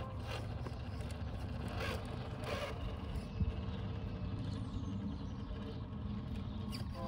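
Traxxas TRX-4 RC crawler's electric motor and gears whirring in short bursts as it crawls over rocks, with a thump about three and a half seconds in.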